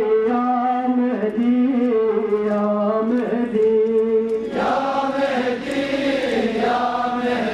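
A man's voice leading a mourning chant through horn loudspeakers, in long held and gliding notes. About halfway through the sound turns fuller and rougher, as the crowd's voices join in.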